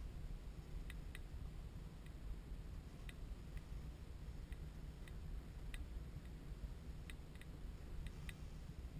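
Faint, irregular sharp clicks, about a dozen, over a low steady rumble of wind on the microphone.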